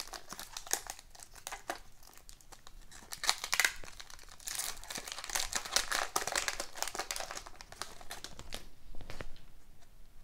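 Foil trading-card pack wrapper crinkling and tearing as it is ripped open and peeled back from the stack of hockey cards. The crinkling dies down near the end.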